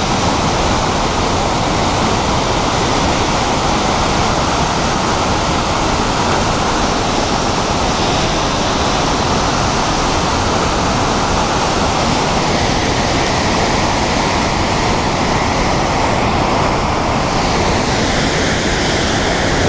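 Water discharging through a dam's open gates into the tailwater below: a loud, steady rush of white water.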